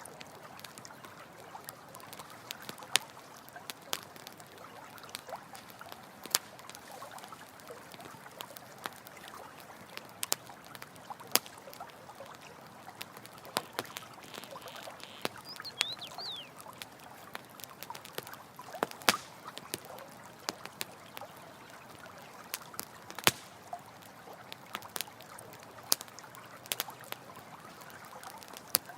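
Campfire crackling, with sharp irregular pops, over the steady trickle of a running stream. A brief high chirp sounds about halfway through.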